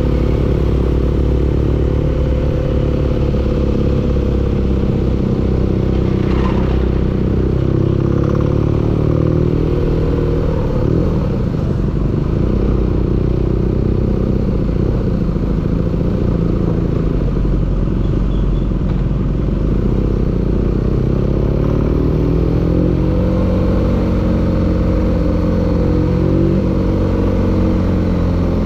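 Engine running steadily with a knocking sound, its speed shifting a little now and then; the knock is the fault the engine is being shown for.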